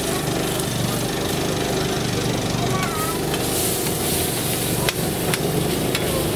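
Marinated chicken sizzling on a flat-top griddle, with metal tongs scraping and clicking against the plate several times in the second half. A steady low motor-like hum runs underneath.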